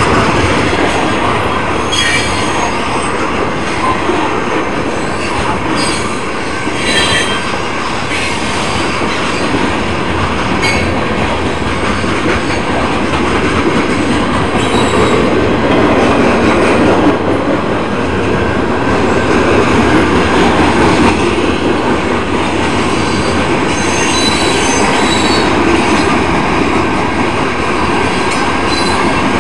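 Freight train cars rolling through a grade crossing: a steady, loud rumble of wheels on rail, with several brief high-pitched wheel squeals.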